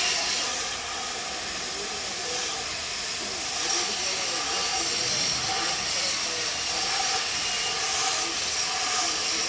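Oxy-fuel gas cutting torch hissing steadily as its flame burns.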